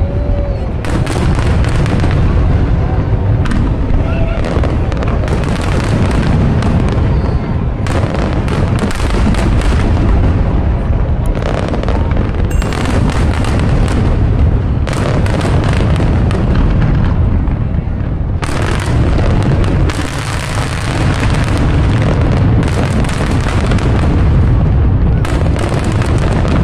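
Fireworks show: aerial shells bursting without a break, deep booms overlapping with sharp cracks and crackle, with crowd voices underneath.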